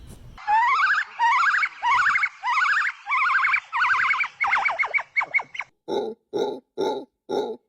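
A monkey calling: a run of squeaky calls rising in pitch, about two a second, that quicken into short chirps, then five short, lower grunting calls near the end.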